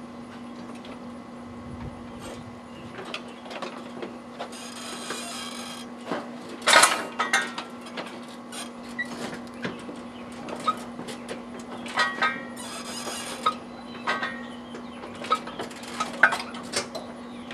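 A riding lawn mower pushed by hand onto the steel wheel cradles of a Cub Cadet mower lift: scattered knocks, clanks and scraping as the wheels roll onto the arms, the loudest knock about seven seconds in, with two spells of hiss. A steady low hum runs underneath.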